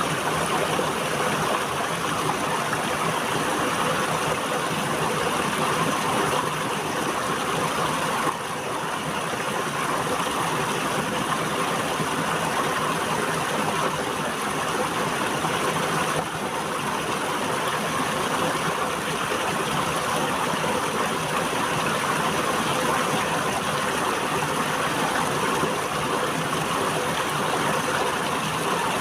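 River water flowing, a steady rushing.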